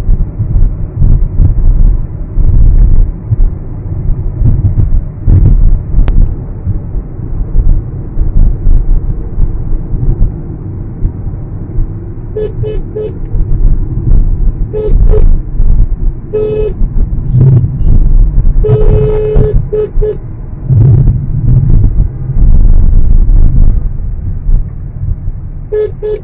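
Steady low road and engine rumble inside a moving car. From about halfway through, a car horn toots in short beeps several times, with one held for about a second.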